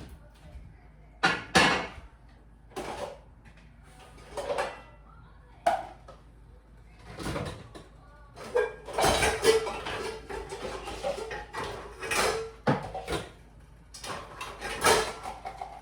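Cookware and utensils clattering: about a dozen separate clanks and knocks, with a longer run of clatter and scraping around nine to ten seconds in.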